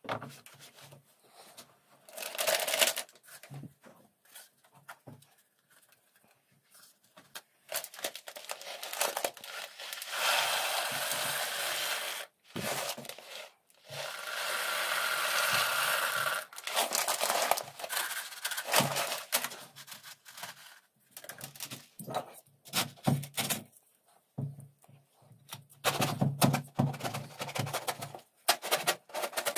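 Dried popcorn kernels poured from a crinkling plastic bag through a paper funnel into a wet leather costrel, making a steady rattling hiss in two long pours. Scattered clicks and knocks follow as the filling is packed down with a wooden stick.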